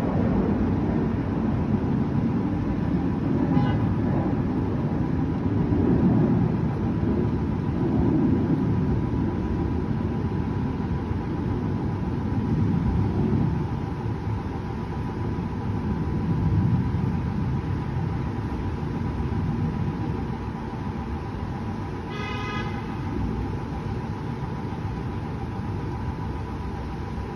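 Low rumbling din of a city at night, swelling and easing every few seconds, with a faint steady high tone underneath. A car horn honks once, briefly, about 22 seconds in.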